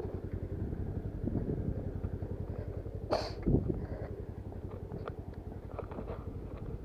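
Motorcycle engine running steadily on a rough off-road track, with a sharp clack about three seconds in followed by a low thump.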